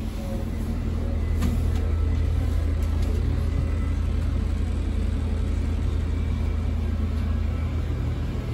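Underfloor diesel engine of a Class 196 diesel multiple unit idling while the train stands at the platform, heard inside the carriage as a steady low hum that grows a little louder over the first second or so. A faint click comes about a second and a half in.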